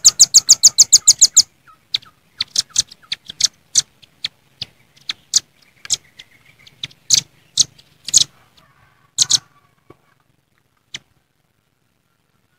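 Velvet-fronted nuthatches calling: a fast trill of sharp, high notes for about the first second and a half, then scattered single sharp call notes that thin out to near nothing after about nine and a half seconds.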